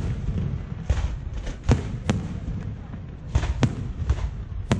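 Aerial fireworks going off: a run of sharp bangs at irregular intervals, two of them close together past the halfway point, with a low rumble between the reports.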